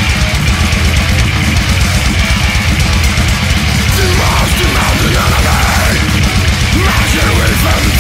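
Technical grindcore: heavily distorted guitars and bass over fast, dense drumming at a steady loud level. About halfway through, wavering high notes that bend up and down come in on top.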